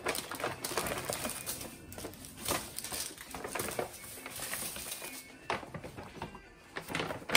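Paper shopping bag rustling and plastic-wrapped packets crinkling and tapping down on a table as they are unpacked, in a series of short handling noises, over background music.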